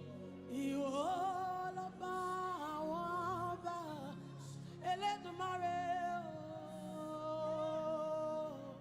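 Wordless worship singing in long, wavering held notes over soft sustained instrumental backing.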